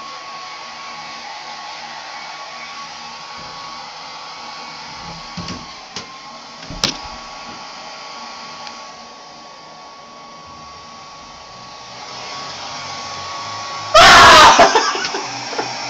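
Steady whirring of a small electric blower, with a couple of short knocks about six seconds in. Near the end a person gives a sudden, very loud yell that distorts, the scare.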